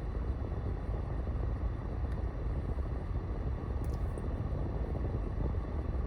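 Steady low rumble of background noise inside a parked car, with two faint clicks in the middle.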